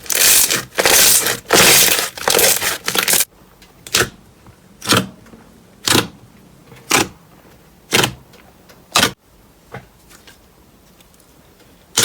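Slime being squeezed and pressed, crackling and crunching. A dense run of crunches for about three seconds gives way to single sharp crunchy pops about once a second, which turn faint near the end.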